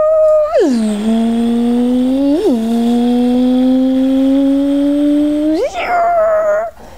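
A person's voice imitating a motorcycle engine, a drawn-out hummed "vroom". It drops in pitch about half a second in and gives a short rev at about two and a half seconds. It then climbs slowly, revs up sharply near the end and breaks off.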